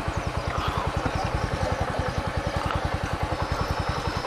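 Motorcycle engine idling with a steady, quick, even pulsing beat.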